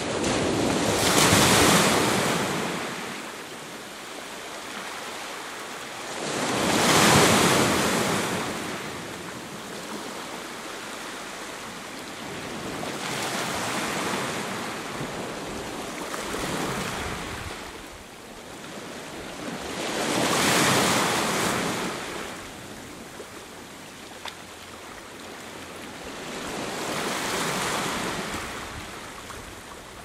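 Sea surf breaking and washing up a pebble beach. It comes in slow swells, five in all, roughly every six to seven seconds, each rising and then draining away.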